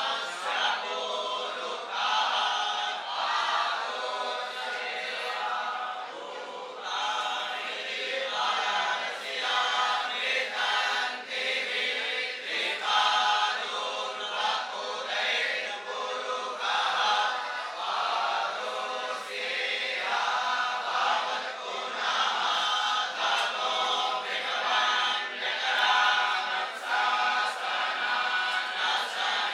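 A group of boy Vedic students chanting Sanskrit mantras together in unison, a steady, continuous recitation.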